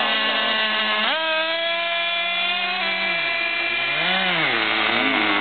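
Small nitro RC car engine running at high revs with a high-pitched whine. Its pitch jumps up sharply about a second in as the throttle opens, holds, then drops, swells briefly and falls again as the throttle is eased off.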